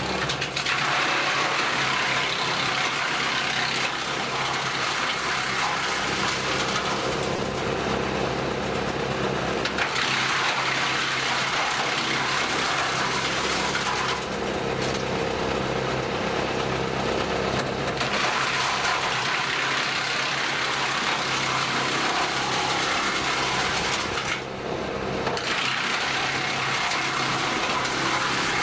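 Tractor-mounted Jansen BX-62RS wood chipper running steadily, with a constant machine hum. Four spells of loud crunching noise, each a few seconds long, come as branches are fed in and chipped, with short lulls of just the running machine between them.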